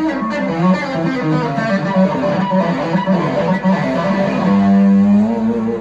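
Live blues-rock band playing, led by an electric guitar: a quick run of notes over bass, then one long held note near the end.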